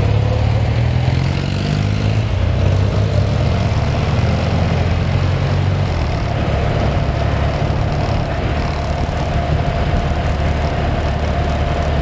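BMW boxer flat-twin motorcycle engine running steadily at road speed, heard from the bike, with an even rush of wind and road noise.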